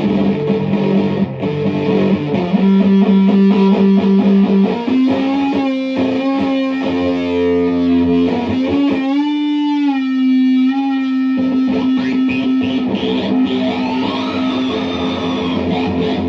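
Electric guitar played through a fuzz and an EarthQuaker Devices Data Corrupter, a PLL harmonizer synth pedal, giving a synth-like tone. Long held notes change every second or two, with wobbling, gliding pitches over a steady note in the middle and a rising glide near the end.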